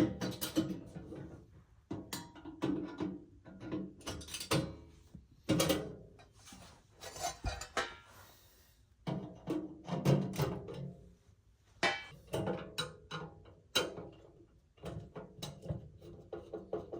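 Background guitar music, with scattered clanks and thunks from a sheet-metal fire alarm panel cabinet being handled and taken apart.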